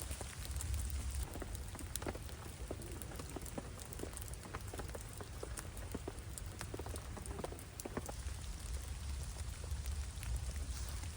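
Rain falling, with many separate drops ticking sharply on nearby surfaces over a steady low rumble.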